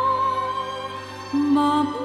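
Slow, soft easy-listening instrumental music: a long held melody note, with a lower note coming in a little past halfway.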